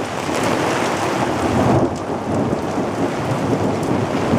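Heavy rain and hail coming down in a thunderstorm, with scattered sharp ticks of hailstones and a low rumble of thunder through the middle.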